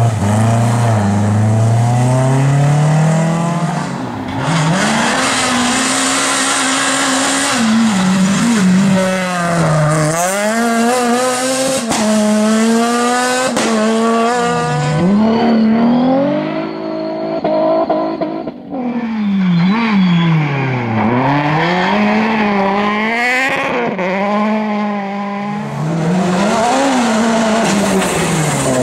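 Rally car engines at full throttle: each engine's pitch climbs through a gear and drops sharply at each shift. Every so often the pitch falls away as the driver lifts or brakes, then climbs again on the power. Several cars go by one after another.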